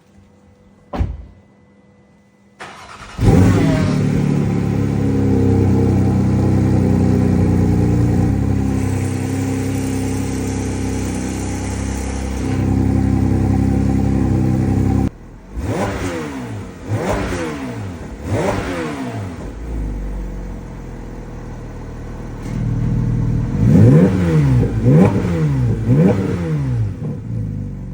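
Porsche 718 Spyder RS's naturally aspirated 4.0-litre flat-six starting about three seconds in after a short thump, then running at a steady raised idle. From about halfway it is blipped through a series of rev sweeps that rise and fall, with several quicker blips near the end.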